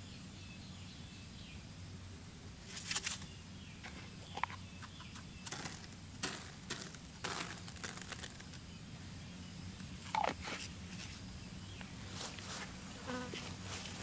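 Short scattered scrapes, taps and rustles, about a dozen of them, from hands working over a small ground trap and sprinkling grain onto its cardboard base, over a faint steady low hum.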